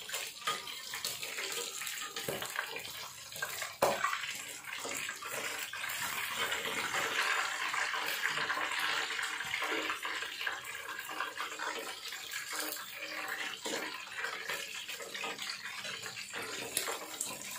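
Hot oil sizzling steadily in a wok around pieces of frying mackerel tuna, with a few sharp clicks and scrapes from a metal spatula and wire-mesh strainer as the fish is lifted out.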